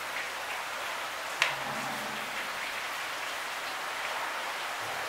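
A hand crumbles paneer and mashes it with boiled potatoes on a plastic plate, under a steady hiss. One sharp tap comes about a second and a half in.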